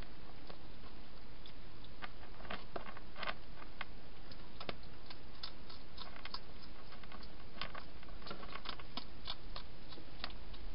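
A hedgehog eating inside a plastic feeding box: irregular, sharp crunching clicks as it chews, over a steady hiss.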